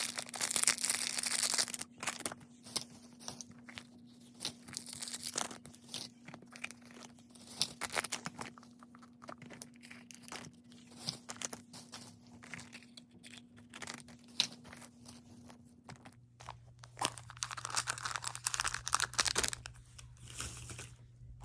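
Small plastic toy packaging being handled: crinkling plastic wrap with irregular sharp clicks and cracks of plastic capsules, busiest at the start and again in the last few seconds, over a faint steady hum.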